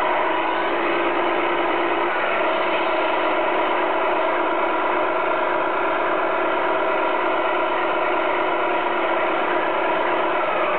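1/14 Tamiya Scania R620 radio-controlled truck running with a steady, engine-like hum of several pitches that shifts briefly about two seconds in and again near the end.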